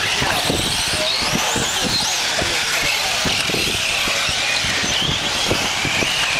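Small nitro glow engines of several 1/8-scale RC racing cars, Kyosho ST-RR Evo truggy among them, screaming at high revs. The high-pitched whine rises and falls as the drivers work the throttle through the jumps and corners.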